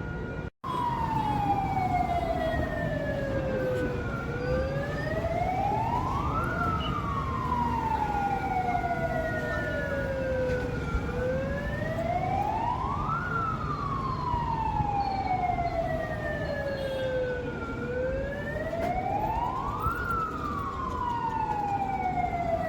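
Air-raid warning siren wailing for a civil defence blackout drill. Its pitch slides slowly down and back up about every seven seconds, with a fainter higher tone moving the same way. It cuts out briefly about half a second in.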